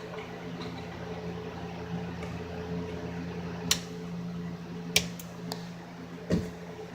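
Two sharp plastic clicks a little over a second apart and a dull knock near the end, as electrical connectors are handled and plugged back onto an AdBlue pump, over a steady low hum.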